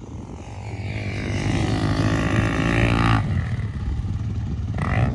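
Dirt bike engine under hard throttle, growing louder for about three seconds on the run-up to a jump, then cut off abruptly as the throttle closes at takeoff. A short throttle blip follows near the end.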